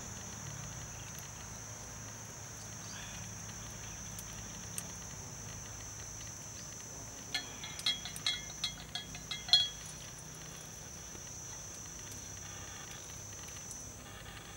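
Steady high-pitched drone of insects, with a quick run of about eight sharp clinks over two seconds near the middle.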